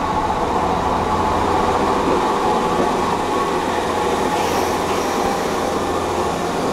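Nankai Line electric commuter train pulling into the platform and running slowly past close by: a steady hum from its motors and wheels on the rails.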